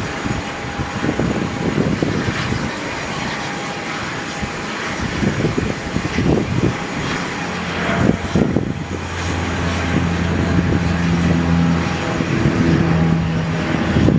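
Aircraft engines running at the airport, a noisy rumble that swells and dips, joined about halfway through by a steady low hum.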